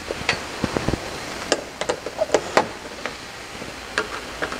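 A 7/16-inch wrench tightening the bolt of a windshield mounting clamp on the roll bar: irregular light metal clicks and knocks, most of them in the first three seconds, with one more near the end.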